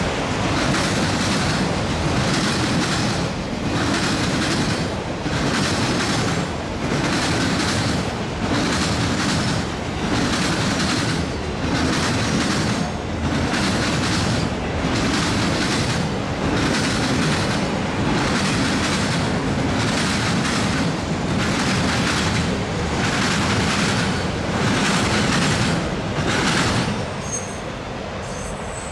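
Freight train of autorack cars rolling past close by, the wheels clattering in an even rhythm about once a second. The sound drops away near the end as the last car passes.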